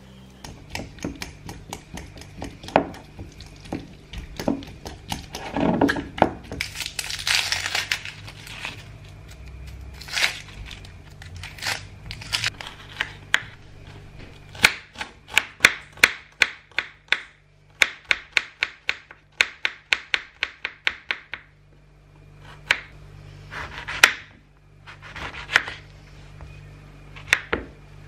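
Kitchen knife chopping onion on a wooden cutting board: runs of sharp knocks, about four to five a second, with short pauses between runs. Near the start, a metal spoon scrapes avocado flesh against its skin and the glass bowl.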